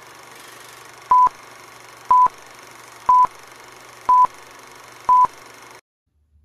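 Film countdown leader beeps: five short, identical high beeps, one each second, over a steady hiss and low hum. The hiss and hum cut off suddenly near the end, after the last beep.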